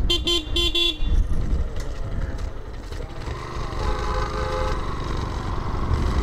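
Road traffic with a vehicle horn beeping three quick times in the first second, then a second, longer horn tone about three seconds in, over a steady rumble of passing vehicles.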